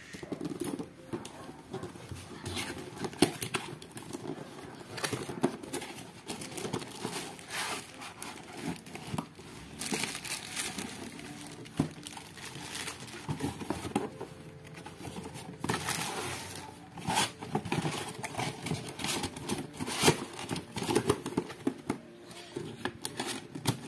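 Packaging being handled during an unboxing: a cardboard figure box opened and a clear plastic bag crinkling and rustling in irregular bursts, with scrapes and crackles.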